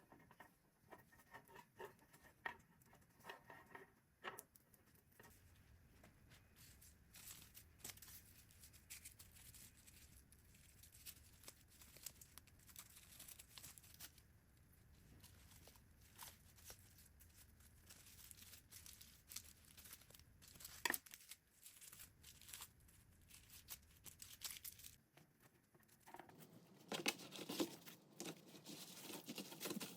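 Faint handling of dry craft material: quiet crinkling and tearing with scattered small clicks, growing louder in the last few seconds.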